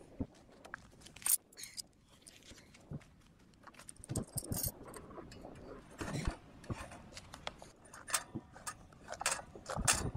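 Metal tire levers clinking and scraping against a motorcycle wheel rim as a flat front tire is worked off to reach the inner tube. It is an irregular string of sharp clinks and knocks mixed with rubber-and-metal scraping, with the loudest knocks about four seconds in, around six seconds and near the end.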